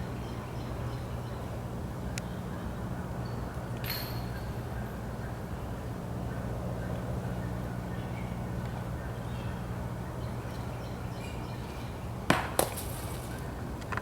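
Two sharp hits about twelve seconds in, the second trailing into a brief metallic jingle, as a golf disc strikes the chains of a disc golf basket. A steady low hum runs underneath.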